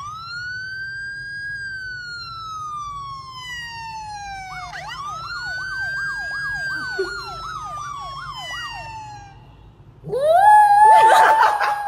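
Emergency-vehicle siren sound from a phone speaker: a long wail that rises and slowly falls, then about five seconds in a fast warbling yelp of about three cycles a second over a slower wail. About ten seconds in a louder rising wail starts, mixed with clicks.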